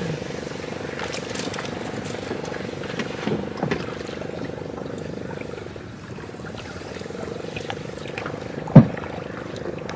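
Small boat motor running steadily with an even hum. A few light clacks come about three seconds in, and one sharp, loud knock comes about nine seconds in.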